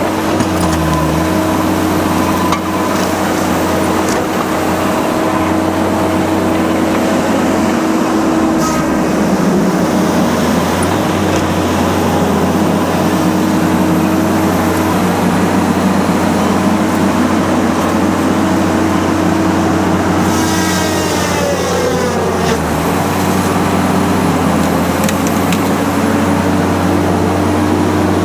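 Tigercat LX 830 C feller buncher's diesel engine running steadily, its pitch dropping about two-thirds of the way through.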